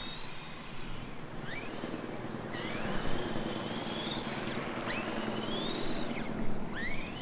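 A small RC car's electric motor whining as it is driven. Its pitch climbs quickly each time throttle is applied and then holds, several times in a row.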